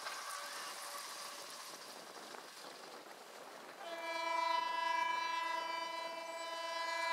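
Air horn of an Indian Railways WAM-4 electric locomotive sounding one long, steady blast that starts about four seconds in. Before it there is faint birdsong.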